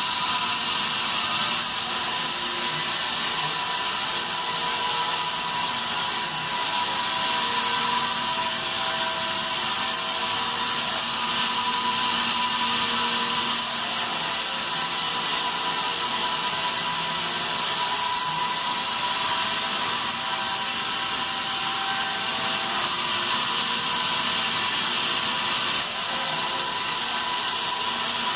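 Sawmill bandsaw running and sawing pine: a continuous, even hiss of the cut with a steady machine tone underneath.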